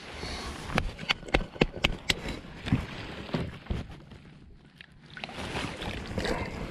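A run of about six sharp knocks and clicks in the first two seconds, then water sloshing as a hand scoops it from a bucket and flings it over the side of a small boat, a bit before the end.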